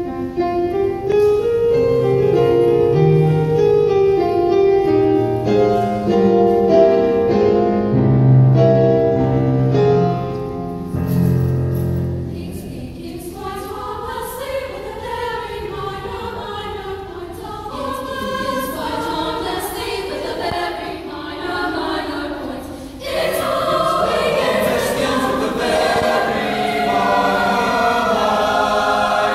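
High school mixed choir singing. Lower voices carry roughly the first dozen seconds, then higher voices take over, and the whole choir comes in louder about 23 seconds in.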